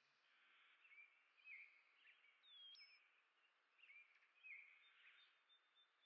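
Faint chirps of small songbirds: a scattered string of short chirps, with one clearer whistled note a little past the middle.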